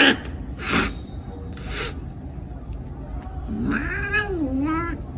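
Domestic cat giving one long meow that rises and falls in pitch, starting about three and a half seconds in. It follows two short bursts of noise in the first two seconds.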